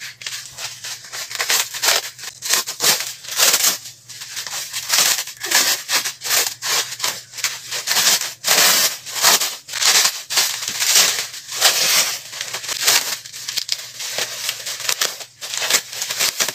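Plastic packaging wrap crinkling and rustling in irregular bursts as it is handled and pulled open by hand.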